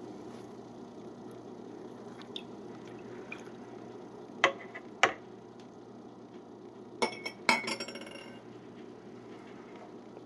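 A stirring spoon clinking: two sharp knocks about halfway through, then two ringing metallic clinks a couple of seconds later, over steady low room noise.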